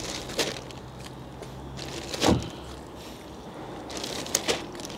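Small fish being picked up off concrete and dropped into a thin plastic shopping bag: the bag rustles and crinkles, with a few sharp knocks, the loudest a little past two seconds in.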